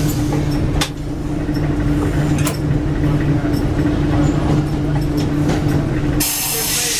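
Inside the cab of a 1967 St. Louis Car Silverliner III electric railcar running at speed: a steady hum and rumble with occasional sharp clicks. About six seconds in the hum drops away and a loud hiss of air starts.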